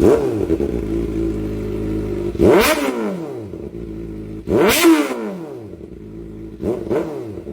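Kawasaki ZX-4RR's four-cylinder engine blipped sharply about every two seconds: each rev shoots up and drops quickly back to a steady idle. This is the high-pitched 'screamer' exhaust note.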